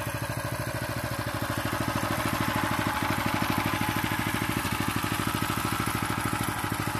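Krotof WG522 walk-behind tractor's small single-cylinder petrol engine running steadily with an even, rapid firing beat, growing a little louder about two seconds in.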